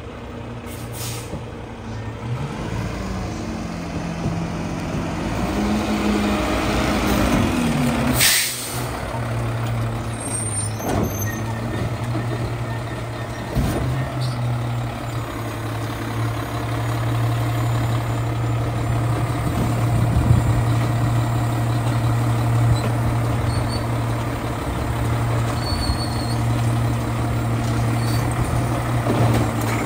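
Mack LR garbage truck's engine running as the truck pulls up and stops, with a loud hiss of the air brakes being set about eight seconds in, then idling steadily.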